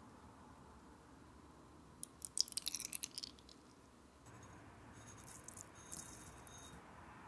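Sugar poured into cream in a stainless steel bowl: a short, crackly rattle of grains about two seconds in, then a softer trickle of sugar for a couple of seconds.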